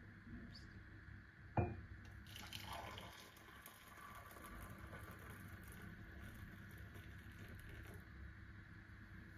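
A sharp knock, then liquid being poured for several seconds, with an uneven hissing splash that fades out near the end.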